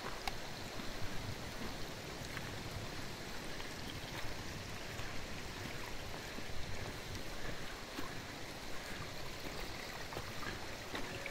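Small mountain stream flowing, a steady rush of water.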